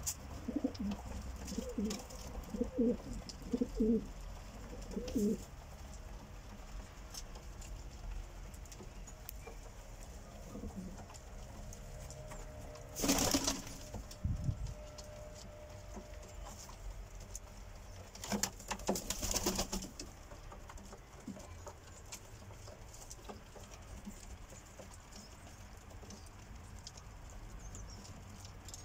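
Domestic show pigeons cooing, a run of low, pulsing coos in the first few seconds, with quieter cooing after. Two brief noises, each a second or two long, come about halfway through and again a little later.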